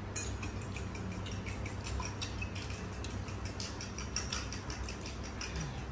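Metal spoon and fork clinking and scraping on a plate while fried rice is scooped up, a run of small light clicks.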